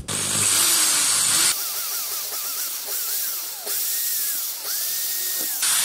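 AEG electric drill running as a makeshift lathe, spinning a decompression valve chucked by its stem while steel wool is held against the valve head to polish it. It starts loud with a high whine, drops quieter about a second and a half in with a wavering whine, and grows louder again near the end.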